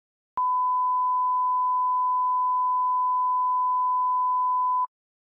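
A single steady electronic test-tone beep: one pure, even high pitch that switches on with a click about half a second in, holds for about four and a half seconds, and cuts off suddenly.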